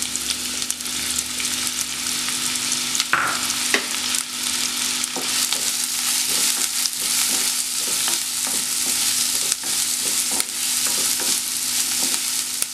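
Chopped onions sizzling in hot oil in a non-stick pan, with a steady hiss and scattered clicks and scrapes of a wooden spatula as they are stirred to fry soft.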